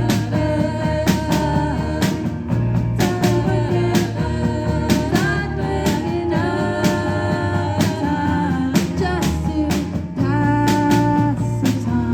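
A live band playing rock music: guitar and a steady drum beat, with singing.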